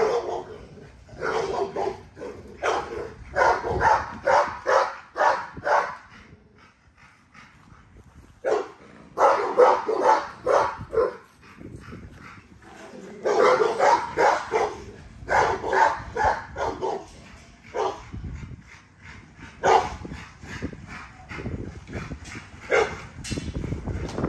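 American bully puppies barking and yipping in quick runs of short, sharp calls, with a brief lull about a quarter of the way through.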